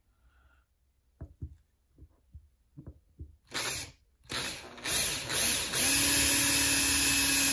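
Cordless drill boring a hole through a PVC pipe: a few light handling clicks, then two short bursts of the drill about three and a half seconds in, after which the drill runs steadily through the rest.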